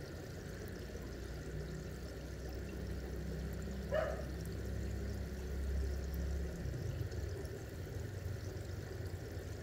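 Faint steady running water with a low hum underneath, and one short blip about four seconds in.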